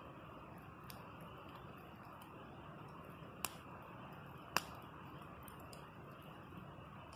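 Campfire crackling, with scattered faint ticks and two sharp pops about three and a half and four and a half seconds in, over a steady hiss of flowing water.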